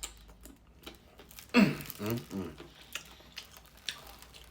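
Chewing and biting into a chocolate-coated ice cream bar, with small crunching clicks throughout. A short vocal sound from the eater, falling in pitch, about a second and a half in is the loudest thing.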